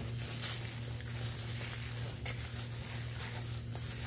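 Spatula stirring a thick chocolate and cherry mixture in a stainless steel bowl: soft scraping with an occasional tick against the metal, over a steady low hum.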